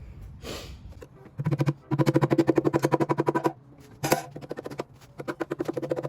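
Impact wrench hammering in two bursts of rapid popcorn-like rattling, a long one about a second in and a shorter one near the end, with a single sharp hiss between them: bolts being run off the engine during teardown.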